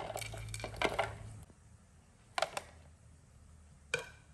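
Light clatter of garlic cloves and shallots tipped into a plastic blender jar, followed by a few separate short knocks, two close together about halfway through and one near the end.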